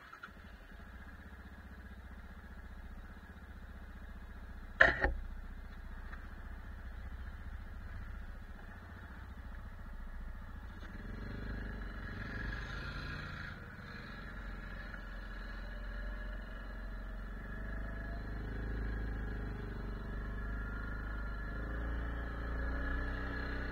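ATV engine idling, with one sharp clunk about five seconds in. From about eleven seconds the engine runs harder as the ATV drives off, its pitch rising and falling with the throttle and climbing near the end.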